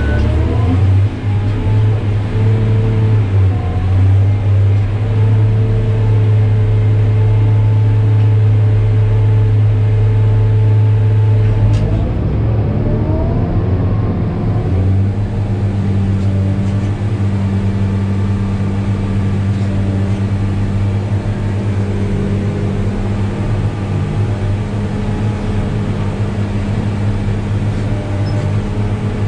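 New Holland RG140B motor grader's diesel engine running steadily under load, its note shifting with a short rising glide about twelve seconds in.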